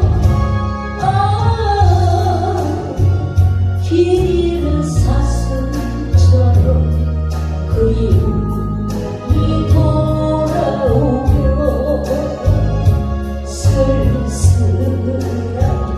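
A song with a singing voice over a band: a sung melody line that holds and bends its notes above steady bass notes and a regular cymbal beat.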